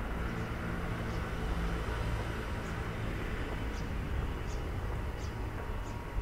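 Footsteps walking on a paved path, faint light steps in a slow, regular rhythm, over a steady low outdoor rumble.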